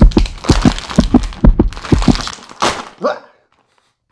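A crinkly plastic chip bag being pulled and torn open by hand: a quick run of loud crackles and thumps for about two seconds, a last crinkle, then it stops abruptly about three seconds in.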